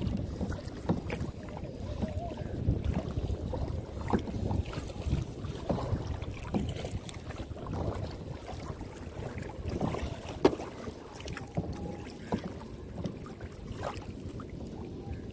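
Kayak paddle strokes dipping and splashing in the water at an uneven rhythm, over wind rumbling on the microphone. A single sharp knock stands out about ten and a half seconds in.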